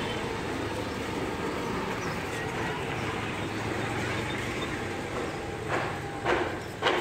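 Steady street background noise, then three or four footsteps on pavement near the end.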